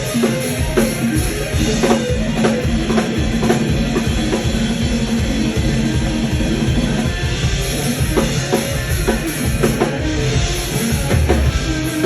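Rock band playing, with drum kit, bass and electric guitar keeping a steady beat.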